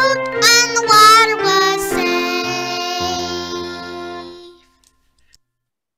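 A children's song, sung with instrumental accompaniment, ending on a held final chord that fades out about four and a half seconds in, followed by near silence.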